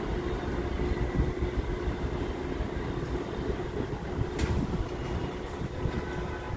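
New York City subway train pulling away from an outdoor station, a steady low rumble of wheels on rail with a faint steady hum. A single sharp click cuts through about four and a half seconds in.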